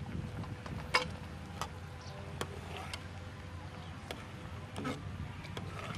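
Scattered metal clinks and scrapes as a lid is lifted off an aluminium cooking pot and a metal ladle stirs inside it. The sharpest clink comes about a second in. A steady low hum runs underneath.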